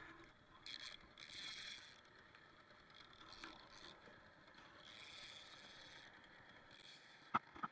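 Faint whirring of a baitcasting fishing reel being cranked, with two sharp clicks near the end.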